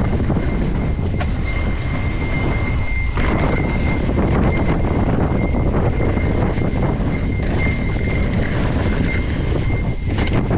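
Trek Fuel full-suspension mountain bike riding fast down a loose, stony dirt trail: a steady loud rumble of knobby tyres on gravel with the chain and bike parts rattling and clattering over the bumps.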